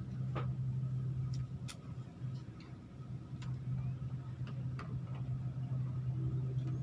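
A motor hums steadily and low, with a few sharp, irregular clicks over it, about half a dozen in all.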